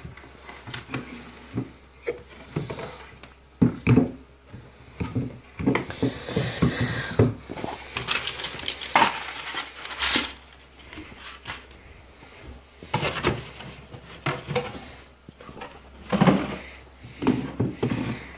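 Handling noise from unpacking computer speakers on a wooden desk: irregular knocks and clatter as items and cables are picked up and set down, with a short rustle of packaging about six seconds in.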